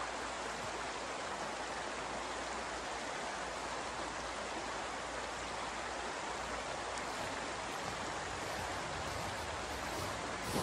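Steady rushing hiss of snowstorm wind and blowing snow, even and unbroken.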